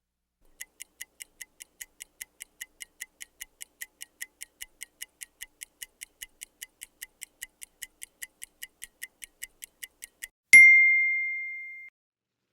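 Microwave oven's mechanical timer ticking steadily, about four to five ticks a second, then a single loud bell ding about ten seconds in that rings out and fades: the timer running down to the end of its cycle.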